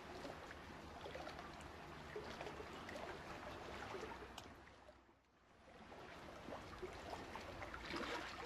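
Faint running, trickling water, which fades away briefly about five seconds in and then comes back.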